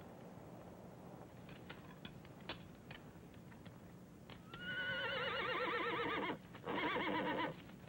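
A horse whinnying: one long wavering call starting a little past halfway, then after a short break a second, shorter one. A few faint clicks come before it.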